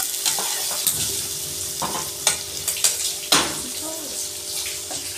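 Sliced onions sizzling in plenty of hot oil in a steel kadai while a metal spatula stirs them, scraping and knocking against the pan about half a dozen times, the loudest stroke a little over three seconds in. The onions are being fried down toward brown for a tadka.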